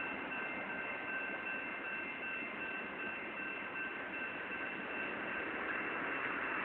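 Freight train of autorack cars rolling past: a steady rush of wheel and rail noise with a thin, steady high whine over it.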